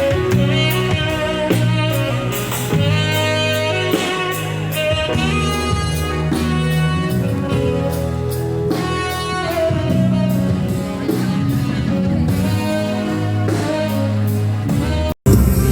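A band playing: a melody line, possibly saxophone, over bass and a drum kit keeping a steady beat. Just before the end it cuts off abruptly and a different, louder piece starts.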